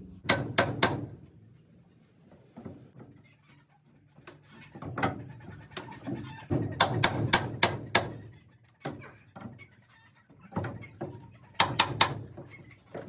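Hammer blows on wooden barn boards, struck in quick runs of about four a second: three near the start, about half a dozen in the middle and three more near the end, with a few lighter knocks between.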